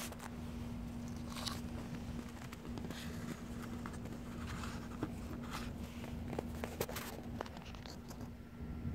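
Light handling noises, scattered soft clicks and rustles, as a disposable paper plate is carried and set down. A steady low hum underneath.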